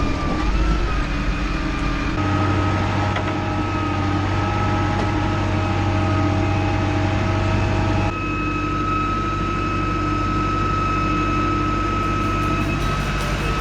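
Tractor engine running at a steady speed. Its sound changes abruptly twice, about two and about eight seconds in.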